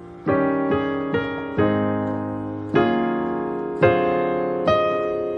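Piano playing a slow run of gospel-style extended chords with the melody on top, an E-flat seventh among them. About seven chords are struck at uneven intervals, each left ringing and fading before the next.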